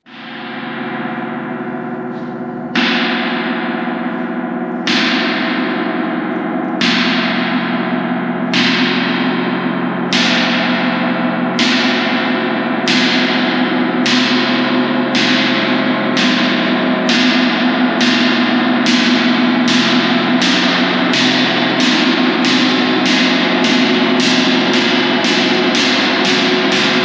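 Large Sabian gong struck again and again with a mallet, the strokes speeding up from about two seconds apart to two or three a second. Its ringing piles up into a loud, swelling wash of many sustained tones.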